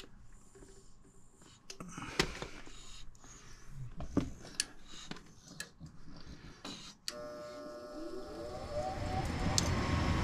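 Scattered light clicks and knocks, then about seven seconds in a click and a gas furnace's draft inducer motor starting up, its hum rising in pitch and growing louder as it spins up at the start of the furnace's ignition sequence.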